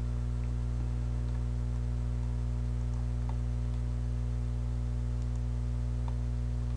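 Steady low electrical hum with a few faint computer mouse clicks, made while curves are adjusted in a 3D program.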